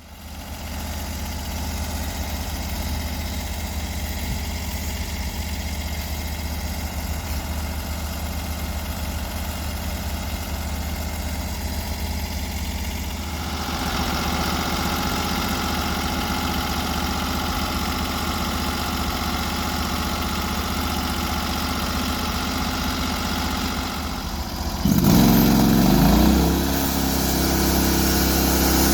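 Gas engine of a Norwood HD36 portable bandsaw sawmill running steadily. About halfway through it grows fuller and a little louder, and near the end there is a brief louder surge in which the pitch shifts before it settles.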